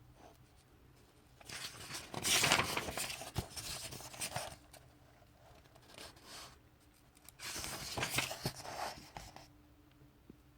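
Pages of a paperback graphic novel being turned, paper rustling and swishing in two stretches a few seconds apart.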